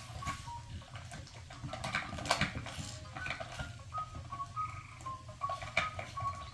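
Cane Corso puppies playing: scattered light knocks and scuffles with brief faint squeaks.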